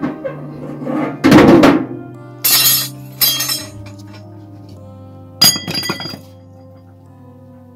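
Metal clattering at a small sheet-metal wood stove: knocks and scrapes as tongs and wood are handled, then a ringing metallic clink as an aluminium kettle is set on it, over background music.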